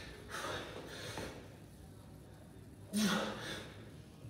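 A man breathing hard from exertion during a kettlebell workout. There is a noisy exhale about half a second in, then a louder exhale with a short grunt about three seconds in, with the effort of getting the kettlebell overhead.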